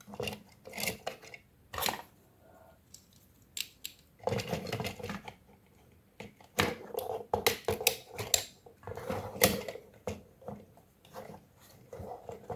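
Hard plastic toy robot parts clicking and clattering as they are handled, with irregular sharp clicks and longer stretches of rattling about four seconds in and again from about six seconds on.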